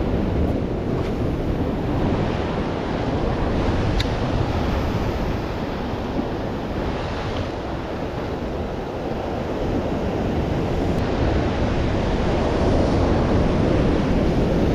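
Pacific surf breaking and washing over shore rocks, with wind buffeting the microphone; the surf grows louder over the last few seconds.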